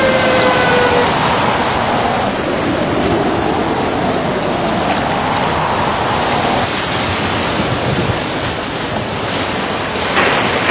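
Storm wind blowing hard, a steady, dense rushing noise. A whistling tone falls slightly and fades out about a second in, and a faint howl rises and falls in the middle.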